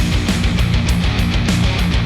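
Rock music with guitar and a steady drum beat of about four strokes a second, played through a Sennheiser headphone and picked up by microphones at the earcup.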